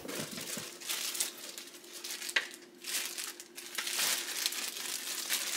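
Clear plastic bag crinkling and rustling as it is handled, in irregular rustles, with one sharper click about two and a half seconds in.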